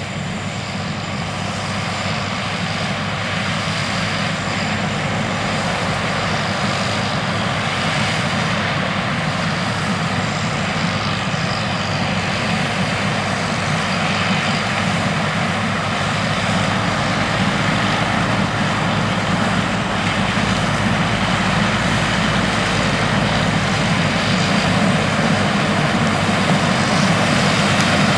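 Large Lexion combine harvesters working in standing corn: a steady, heavy diesel engine and machinery drone that grows gradually louder as the machines draw nearer.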